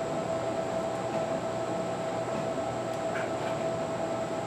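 A steady machine hum with a constant whine and no change in level, with a couple of faint ticks about three seconds in.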